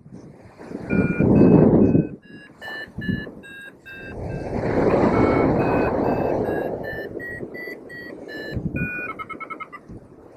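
Paragliding variometer beeping: a run of short electronic beeps that step up and down in pitch, quickening into rapid beeps near the end, the vario's tone for rising air. Wind rushes over the microphone beneath it.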